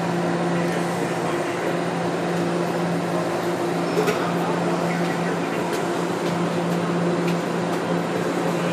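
Toronto Rocket subway train heard from inside the driver's cab as it moves out of the platform into the tunnel: a steady low hum with a higher tone above it over an even running noise. There is a single sharp click about four seconds in.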